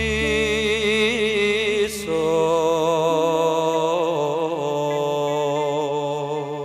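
Slow Javanese tembang: a male singer holds a long drawn-out note with wide vibrato over sustained instrumental accompaniment and a steady bass note.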